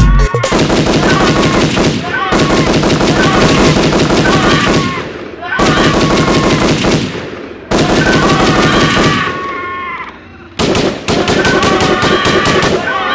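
Machine-gun fire sound effect in five long rapid-fire bursts separated by short pauses.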